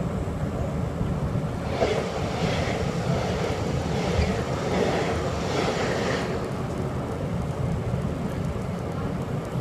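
Steady rumble of a train running, heard from inside the carriage. From about two seconds in until about six seconds in, a train passing close by on the next track adds a rushing whoosh, which then falls away.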